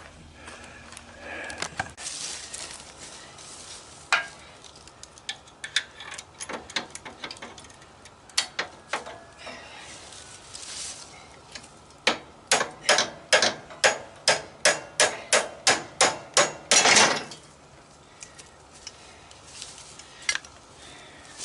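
Hand tools knocking and clinking on a riding mower being torn down for scrap, then a quick run of about fifteen hammer blows on metal, roughly three a second, ending in a longer clank.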